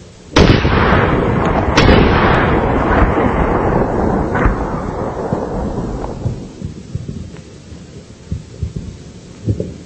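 Two rifle shots about a second and a half apart, slowed down so they come out as deep booms with a long rumbling decay that fades over about six seconds. A few softer knocks follow near the end.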